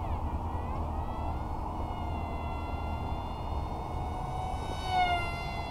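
High-pitched whine of the XK A180 F-22 RC plane's brushless motor and Gemfan Hurricane 3018 propeller in flight, its pitch dipping and recovering at the start and again near the end, when it briefly gets louder. A steady low rumble runs underneath.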